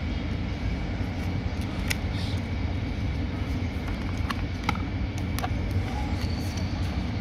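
A steady low rumble, with a few light clicks and taps scattered through it.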